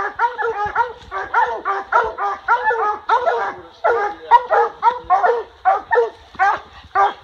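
Several coonhounds barking treed at a raccoon up a tree, a rapid run of overlapping chop barks, several a second without a break. It is the tree bark that tells the hunter the coon is treed.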